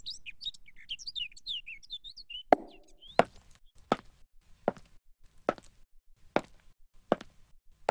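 Birds chirping for the first couple of seconds, then a sharp knock with a short ring, followed by a steady run of single knocks about every three-quarters of a second.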